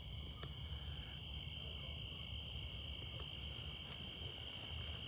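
Crickets chirping: a steady, unbroken high trill.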